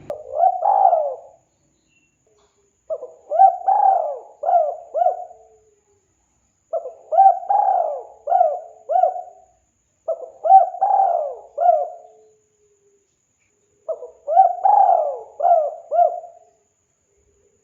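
Spotted dove (tekukur) cooing: phrases of four or five quick coos, one phrase about every three and a half seconds, with silence between them.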